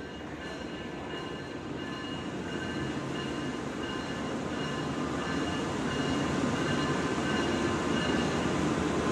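A CC 206 diesel-electric locomotive hauling a cement freight train approaches at low speed. Its steady rumble grows louder as it comes closer.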